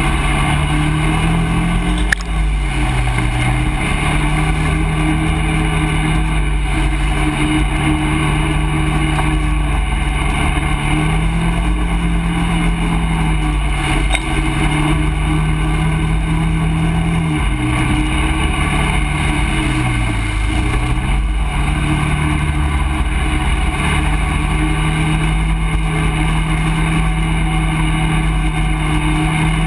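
ATV engine running steadily as the quad rides, its pitch dropping briefly as the throttle eases off about two seconds in and twice more past the middle before picking back up.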